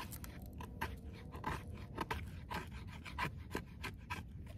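Hatchet blade scraping shavings off a stick of fatwood, quick irregular strokes several a second, to feed tinder into a burning Swedish torch log stove.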